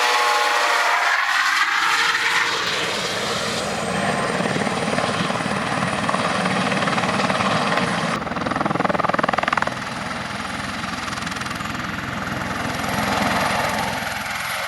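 Airbus H130 (EC130 T2) helicopter in flight: the main rotor beats low and rapidly under a thin, high turbine whine that rises slightly in pitch. The sound swells for a moment in the middle and then eases.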